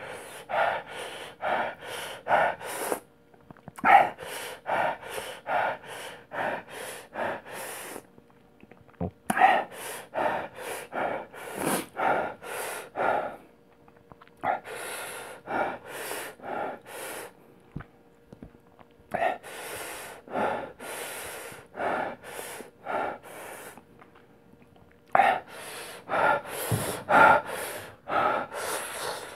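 A man gasping and panting hard through his mouth, short sharp breaths about two to three a second in runs of a few seconds with brief pauses between, from the burn of the Paqui One Chip Challenge chip.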